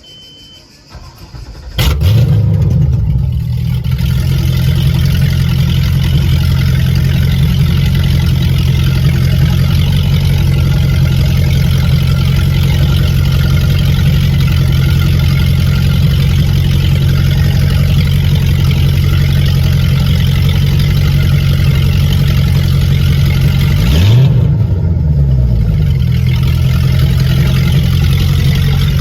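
MerCruiser 496 Mag 8.1-litre V8 in a Baja 232 speedboat starting up about two seconds in with a brief rev, then idling steadily. Near the end of the idle it gets one quick throttle blip, rising and falling in pitch, before settling back to idle.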